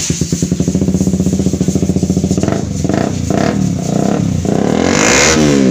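KTM RC 125's single-cylinder four-stroke engine running through a freshly fitted aftermarket slip-on exhaust: idling with an even, loud pulse, a few throttle blips in the middle, then a rev that rises and falls back near the end.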